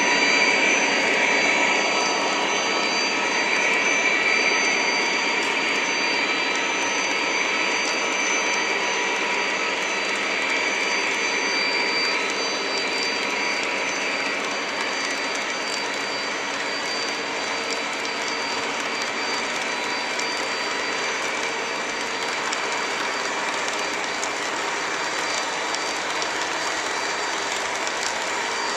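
Model double-stack container train cars rolling steadily past on the layout track: an even, continuous rolling whir with a few faint steady high tones, easing slightly in level.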